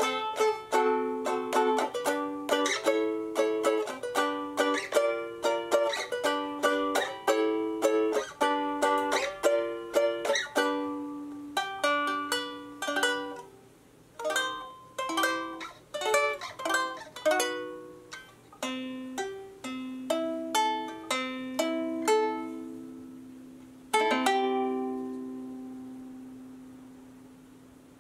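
Homemade tenor box ukulele built from a wooden sake box, fingerpicked: a flowing arpeggio of plucked notes that grows sparser about halfway through. Near the end a final chord is struck and left to ring out and fade.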